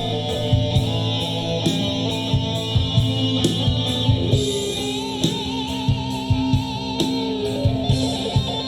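A live rock band playing: electric guitar over a steady drum beat, with a held, wavering note near the middle.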